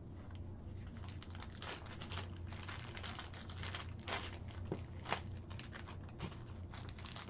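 Small clear plastic parts bag crinkling as it is handled and opened, in irregular crackles, with a steady low hum underneath.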